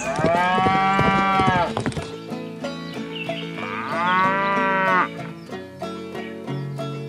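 Cow mooing twice, each call rising and then falling in pitch: the first lasts nearly two seconds, the second just over a second, about two seconds later. Background music plays underneath.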